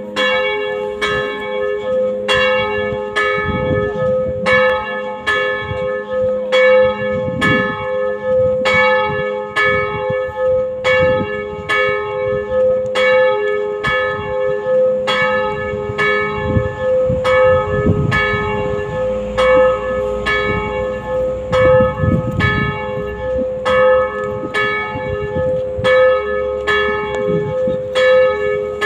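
Church bells tolling steadily, a stroke a little more often than every half second, each ringing on over a continuous hum: the funeral toll as the coffin is carried out of the church.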